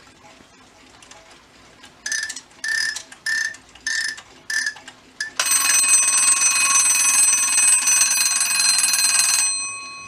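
Rhythm Space Age 51159 wind-up alarm clock's alarm bell going off: about two seconds in it rings in six short bursts roughly half a second apart, then rings continuously for about four seconds and stops, the bell ringing out briefly.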